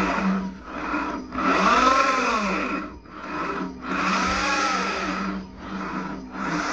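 Renault Zoe R240 electric drive unit spinning up and down about three times, its whine rising and falling in pitch under a grinding, milling noise. This is the fault noise of a worn drive unit, which the mechanic puts down to the reduction gearbox.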